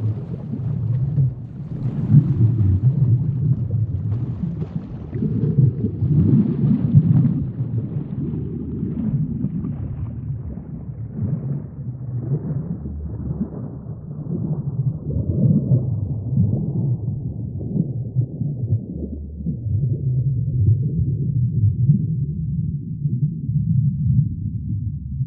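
Low, muffled underwater ambience: a deep rumble with irregular swells and faint crackling, growing duller toward the end.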